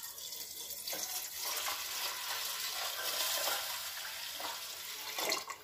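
Water pouring steadily into a pressure cooker holding washed rajma and urad dal, tapering off and stopping near the end.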